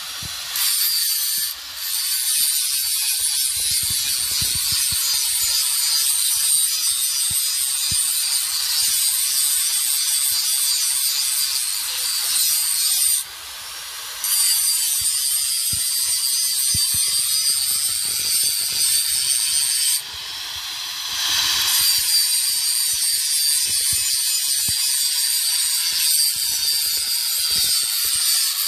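Handheld electric angle grinder running at speed, its disc grinding the rusty steel of an axe head: a steady high-pitched whine with a grinding hiss. It dips briefly a few times as the disc eases off the metal.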